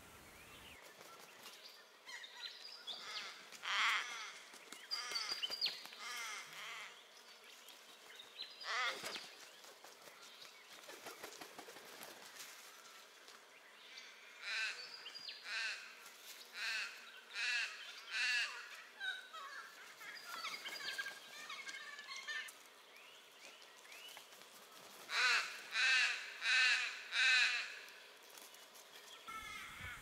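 Crows cawing: harsh caws in several separate runs, ending with four loud caws in quick succession near the end.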